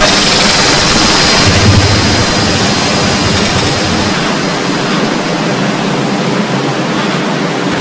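Experimental noise music: a loud, dense wall of hissing roar that comes in abruptly, with a thin steady high whine held over it.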